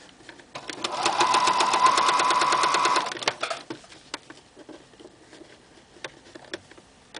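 Computerized sewing machine stitching a binding onto stretch fabric, with a quick even rattle of the needle and a steady motor whine for about two seconds before it stops. A few faint clicks follow while the fabric is repositioned.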